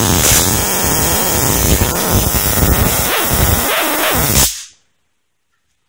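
Handheld stun gun arcing, a loud, continuous electric crackle that cuts off abruptly about four and a half seconds in. The stun gun serves as the spark generator of a simple spark-gap radio transmitter.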